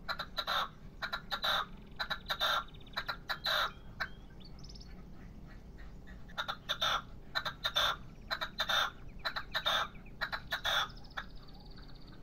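Young male red-legged partridge ('pollo') calling from a decoy cage: runs of short, harsh calls a fraction of a second apart, with a pause of about two seconds just before the middle.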